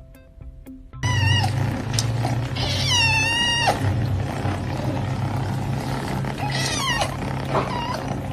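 A cat meowing in three long, wavering calls over a steady low rumble, after a second of soft plucked background music.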